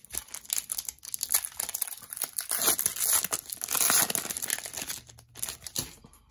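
A trading-card pack's foil wrapper being crinkled and torn open by hand: a dense crackle that is loudest in the middle and thins out near the end.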